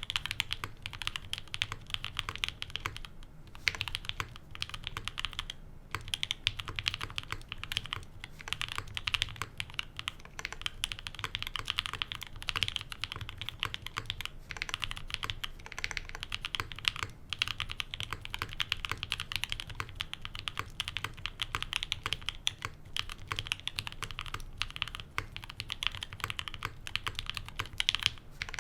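Continuous typing on a custom Mode65 mechanical keyboard with a POM plate, lubed 67g Tangerine linear switches and GMK keycaps: a steady stream of keystroke clacks with a few short pauses.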